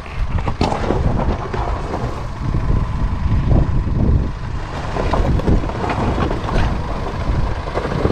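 Force Gurkha 4x4 crawling down a loose rocky slope: tyres crunching and grinding over stones, with scattered sharp cracks of rock under the wheels over a continuous low rumble.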